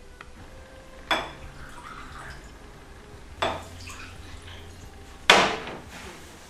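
Wine poured from a glass bottle into stemmed glasses, with three sharp clinks of glass on glass about one, three and a half and five seconds in. The last clink is the loudest, as the bottle is stood on the table.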